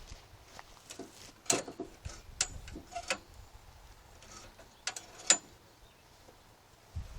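A handful of sharp, irregularly spaced clicks and taps over a faint background, the loudest just after five seconds in.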